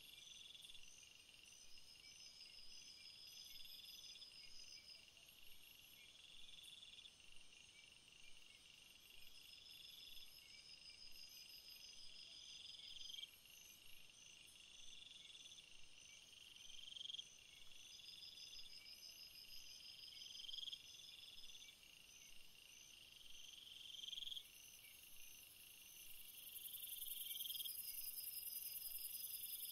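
Faint insect chirping, cricket-like: a short rising chirp repeats about every two seconds over higher, steadily pulsing trills. Near the end a high hiss comes up.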